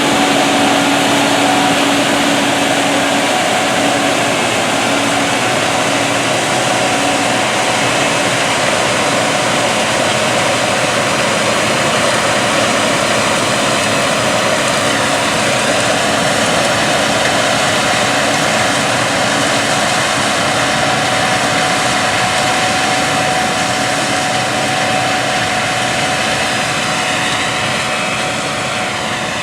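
Gleaner S97 combine with its 9.8-litre AGCO Power diesel engine running steadily while harvesting soybeans: dense mechanical noise with a steady whine, growing slightly fainter near the end.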